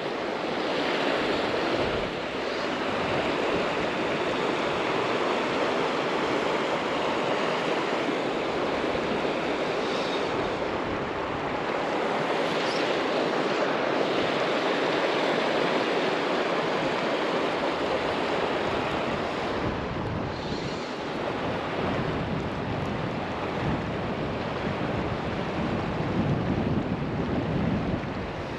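Steady rushing of the South Platte River's current, with gusty wind buffeting the microphone, the low rumble of the wind growing in the last third.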